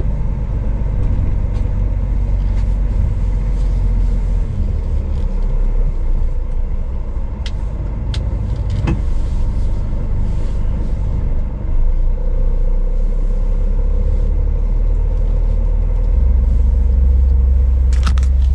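Scania S500's V8 diesel engine running as the truck drives slowly, heard from inside the cab: a steady low rumble that gets deeper and louder about sixteen seconds in, with a few light clicks midway.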